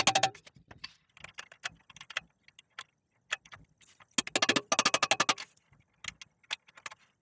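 Metal tools clicking and clattering against a bicycle frame's eccentric bottom bracket as it is worked loose. A loud clatter right at the start, scattered single clicks, then a fast run of clicks about four seconds in lasting over a second.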